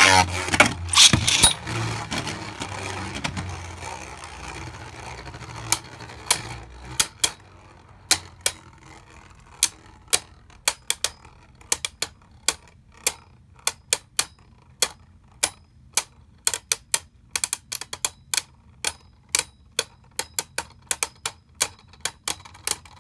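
Two Beyblade Burst spinning tops in a plastic stadium: a loud clatter and a fading whir in the first couple of seconds, then sharp, irregular clicks, one to three a second, as the tops knock together while they slow.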